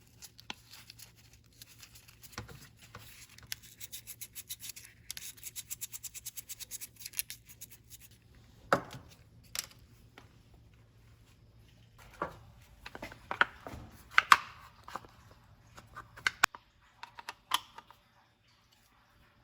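Quick, even back-and-forth rubbing strokes on a small part, then scattered light clicks and knocks as small parts are handled.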